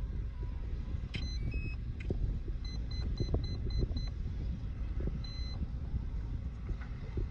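Start-up beeps from the RC F-22 Raptor jet's electronic speed controller as the model is powered up: a short run of stepped tones about a second in, a string of about seven quick beeps, then one longer beep about five seconds in. Wind rumbles on the microphone underneath.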